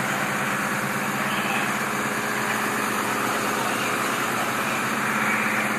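Fire truck's diesel engine running steadily at a fast idle while it drives the hydraulics of its aerial ladder platform.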